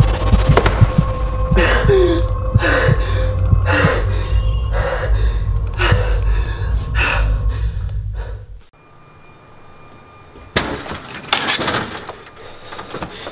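Horror-film sound design: a loud low drone with steady tones, under heavy gasping breaths about once a second. It cuts off abruptly partway through, leaving quieter background broken by a couple of sharp noises.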